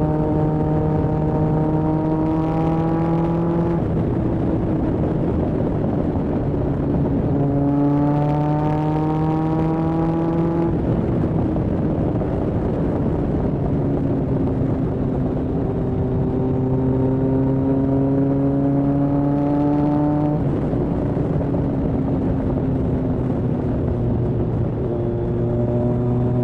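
Kawasaki ZRX1200R's inline-four engine, breathing through Yoshimura TMR-MJN carburettors, pulling under way: the revs climb steadily for a few seconds, then ease back as the throttle closes, four times over, with wind and road noise beneath.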